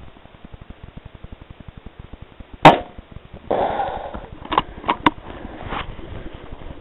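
A single sharp rifle shot about two and a half seconds in, a missed shot at a rat. It is followed by a short burst of rustling and three or four sharp clicks.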